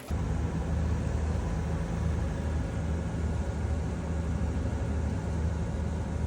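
Steady low drone of a sailboat's diesel engine running at constant speed, an even hum with no change.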